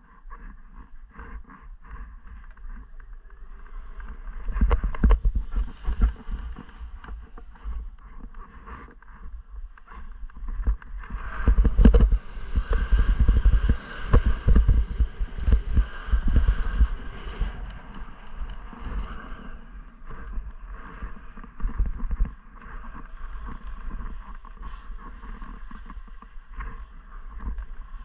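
Skis scraping and chattering over hard, wind-crusted snow while skiing downhill, with wind buffeting a body-worn camera microphone as a low rumble. The noise swells with each run of turns, loudest a few seconds in and again from about twelve to seventeen seconds in.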